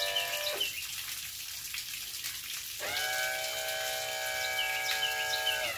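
Power trim and tilt motor on a 1973 65 hp Evinrude outboard whining as it tilts the engine. It cuts off about half a second in, then starts again about three seconds in and runs until near the end, its pitch sliding as it starts and stops. Underneath is the steady hiss of flush water spraying from the lower unit.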